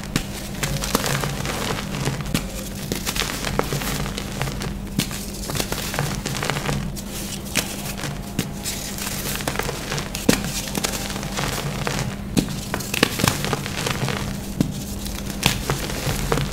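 Dry, dyed, reformed gym chalk being crumbled and snapped by hand: crisp crunching and crackling with many sharp snaps, over a steady low hum.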